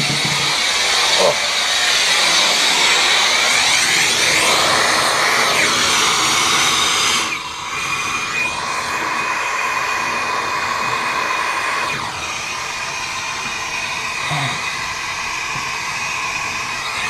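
Plumber's gas torch flame hissing steadily as it heats a soldered copper water-line joint, dipping briefly about seven seconds in.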